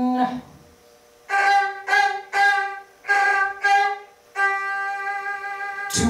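A violin playing about five short notes, then one long held note near the end.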